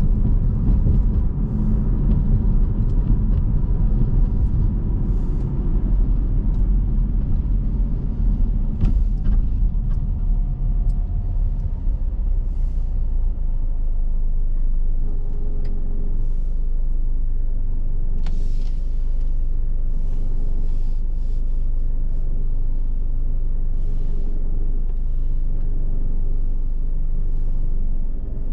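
Car being driven: a steady low rumble of engine and road noise, rough and uneven over the first dozen seconds, then smoother and steadier.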